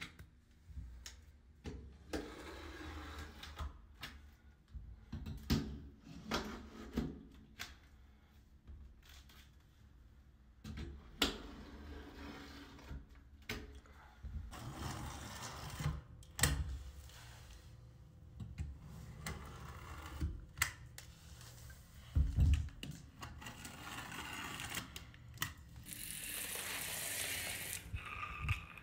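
Hand scrapers scraping and peeling paint and tape off painted surfaces: scratchy scraping strokes with many sharp clicks and taps, and a longer, brighter stretch of scraping near the end.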